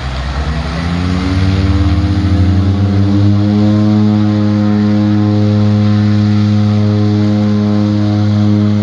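An engine spinning up, its drone rising in pitch over the first three seconds, then running at a steady, even pitch.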